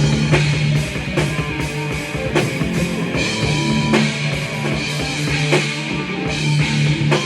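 Rock music with a full drum kit and distorted guitar playing, a drum strike landing about once a second over held low guitar notes.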